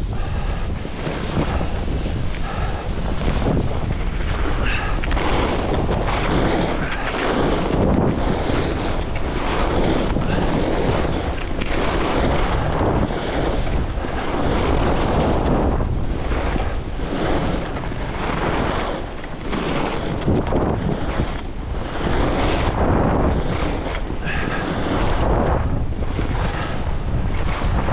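Wind rushing over the microphone and skis hissing and scraping through fresh snow on groomed corduroy, swelling and easing about every second and a half as the skier links turns.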